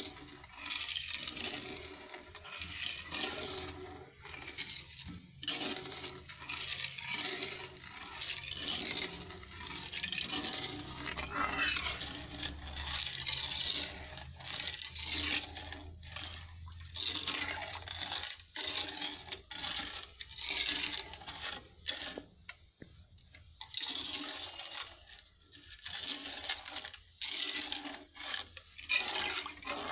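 Metal spoon stirring sugar and water in a pot to make sugar syrup: the liquid swishes, and the spoon scrapes and clinks against the pot in irregular strokes.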